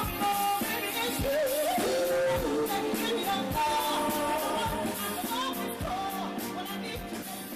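Pop/R&B-style music: a singing voice over a steady drum beat, getting quieter near the end.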